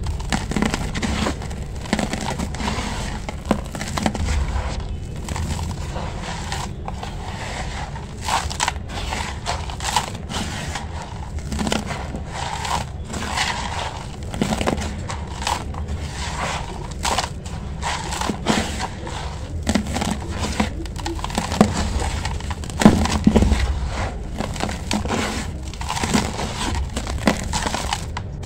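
Dry sand-cement mix being squeezed and crumbled by hand in a container: a dense, irregular crunching and gritty crackling as the clumps break up and the powder is pressed.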